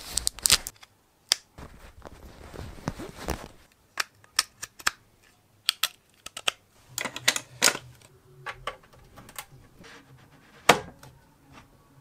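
Handling of a coiled USB cable and a plastic plug-in power adapter: soft rustling and a scatter of small plastic clicks and taps as the cable is uncoiled and plugged in, with one louder click near the end.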